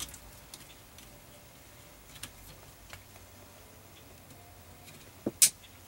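Faint scattered plastic taps and ticks from handling the yellow airbag connector, then two sharp clicks in quick succession about five seconds in as it slips on and latches into the new clock spring.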